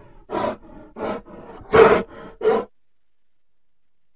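Crow cawing: a run of short, harsh caws about two every second and a half, the loudest near the middle, stopping about two and a half seconds in.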